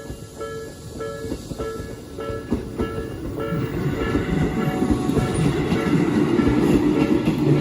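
Japanese level-crossing warning bell dinging about twice a second as a Tobu Koizumi Line train comes onto the crossing. From about three and a half seconds in, the train's rumble and wheel clatter grow louder and drown the bell.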